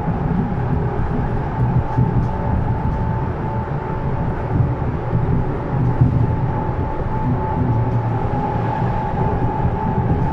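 Berlin S-Bahn class 485 electric multiple unit running, heard inside the passenger car: a steady low rumble with a steady whine above it.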